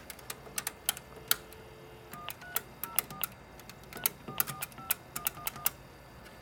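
Payphone touch-tone keypad being dialed: about eleven quick button presses, each a click with a short two-note touch-tone beep. A steady dial tone cuts off at the first press, and several clicks of the handset and hook come before it.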